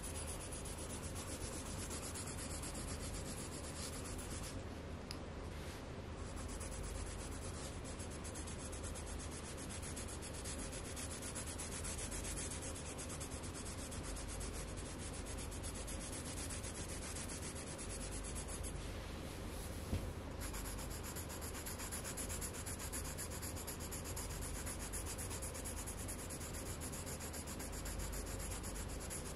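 Coloured pencil shading on paper: a steady scratching of quick back-and-forth strokes, with one light tap about two-thirds of the way through.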